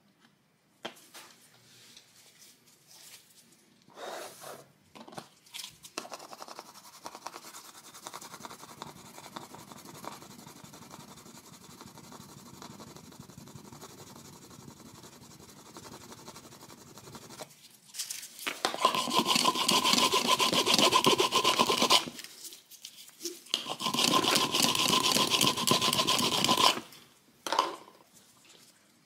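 A small yellow pad rubbed back and forth over a hard-wax fill in laminate flooring: light scratchy rubbing at first, then two loud spells of brisk scrubbing of a few seconds each, with a brief rub near the end.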